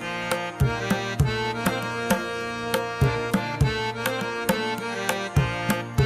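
Background music: a tabla-style drum beat of about two strikes a second under sustained melodic notes.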